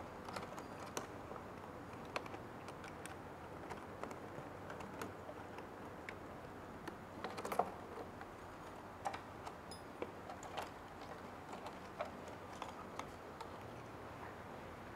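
Faint, scattered light clicks and ticks of flat ribbon cables being handled and routed by hand around a UV printer's print head carriage, with a small cluster of clicks about halfway through.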